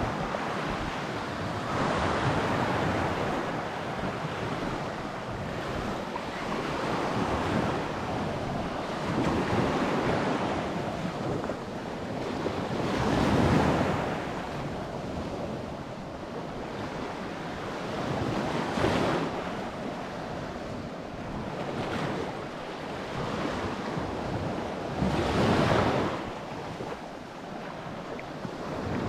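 Baltic Sea surf washing onto a sandy shore, a steady rush that swells louder as a wave breaks about every six seconds. Wind rumbles on the microphone.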